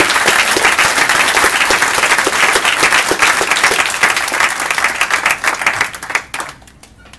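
A large audience applauding with dense, steady clapping that dies away about six and a half seconds in.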